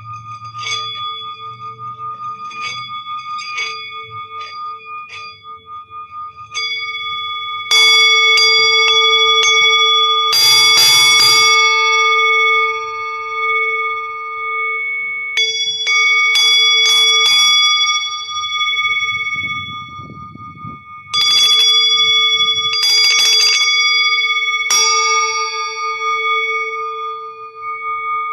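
Singing bowl ringing with a long, wavering tone, struck lightly several times and then harder, some strikes in quick clusters, each strike renewing the bright ring.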